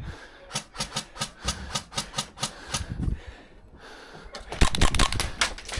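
Airsoft gunfire: a run of sharp pops at about four a second, then after a short pause a dense rapid burst near the end.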